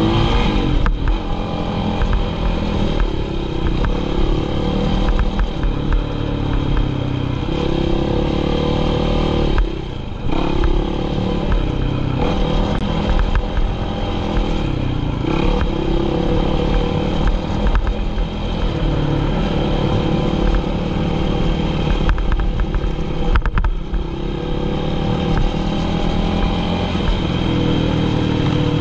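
ATV engine running under throttle, heard from on board while riding a dirt trail. Its note rises and falls with the throttle and drops off briefly twice, about ten seconds in and again near the twenty-four-second mark.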